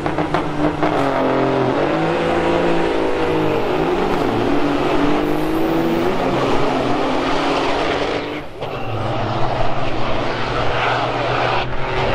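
Heavy diesel semi truck engines running hard, the engine note wavering in pitch. About eight seconds in the sound briefly dips, then a steadier low engine drone takes over.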